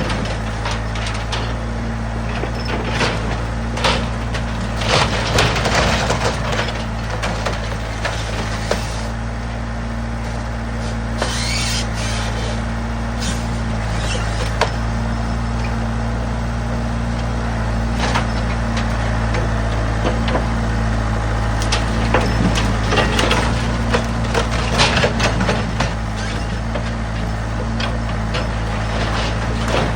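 John Deere 410 backhoe's engine running steadily while the machine tears down a wooden structure, with repeated cracks and crashes of splintering boards and timber.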